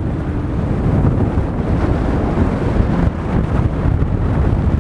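Quad Mercury 450 hp outboards of an MTI V42 center console under hard throttle as the boat accelerates onto plane, mixed with wind buffeting the microphone and water rushing along the hull. The sound grows louder in the first second and then holds as a dense, deep rumble.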